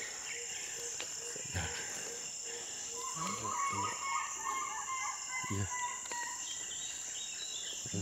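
Tropical rainforest ambience: a steady high insect drone, with a bird giving a fast chattering call for about two seconds near the middle and fainter high bird notes near the end.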